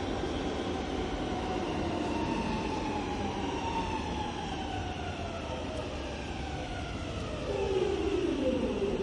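Metro train pulling into a station, its whine falling steadily in pitch as it slows. The sound gets louder near the end.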